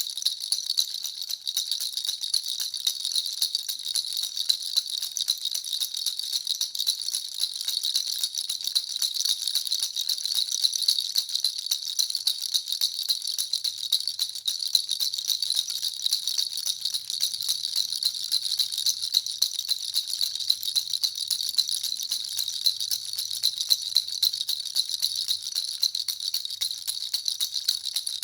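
Baby rattle (jhunjhuna) shaken continuously: a dense, fast, unbroken jingling with a high-pitched ringing.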